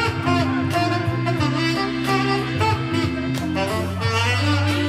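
Band music with a steady beat and long held melody notes.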